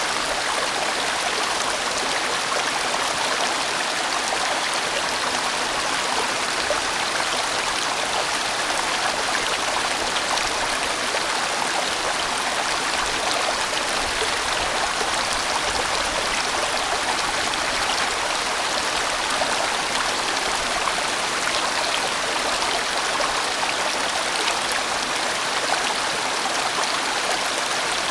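A large, winding valley stream flowing: a steady, even rush of water that does not change.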